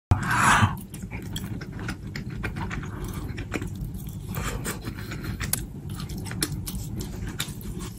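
Close-miked biting and chewing of grilled skewered food: a loud bite right at the start, then steady chewing with many short crisp crunches and wet clicks.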